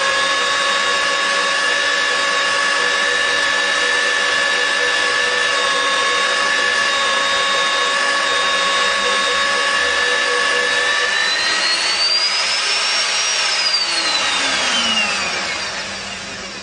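Electric steel drill running with a steady, high motor whine over a noisy cutting sound. About twelve seconds in its pitch rises, then it falls away and the sound dies down as the drill winds down.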